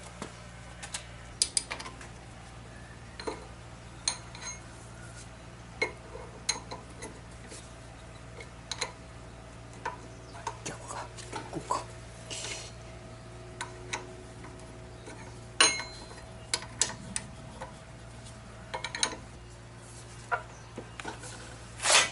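Irregular metallic clicks and clinks of a wrench and loose parts as the front fender stay bolts are worked on a motorcycle's front fork, over a steady low hum.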